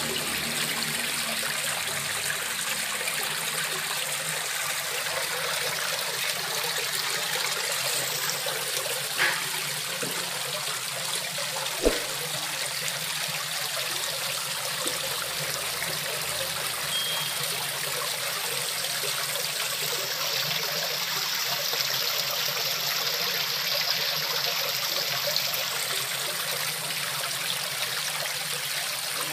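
Water trickling steadily from a small garden cliff-relief waterfall into a fish pond. A light tap about 9 seconds in and a sharper knock about 12 seconds in stand out briefly.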